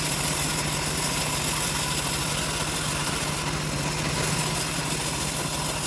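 Engine of a homemade bandsaw sawmill running steadily at an even pitch, with no change in load.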